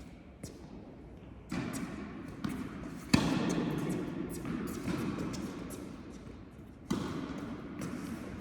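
Tennis balls struck by rackets and bouncing on an indoor court during a rally: several sharp hits, the loudest about three seconds in, each echoing in the hall.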